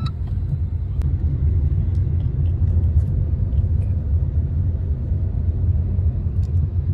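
Steady low rumble of a moving Maruti Suzuki car heard from inside the cabin: engine and road noise while it is being driven.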